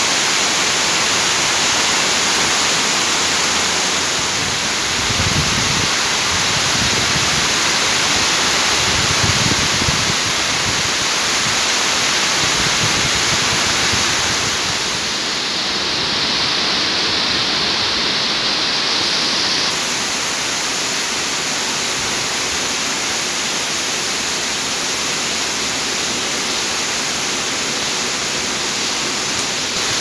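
Heavy rain pouring steadily, a dense hiss of drops on roofs, street and trees. There are two brief low rumbles about 5 and 9 seconds in, and the hiss changes tone for a few seconds around the middle.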